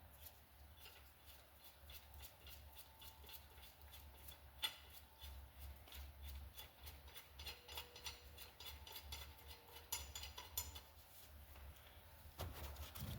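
Faint clicks and light handling of metal hand tools on a workbench over a low hum, with one sharper click about four and a half seconds in and a brief rattle around ten seconds.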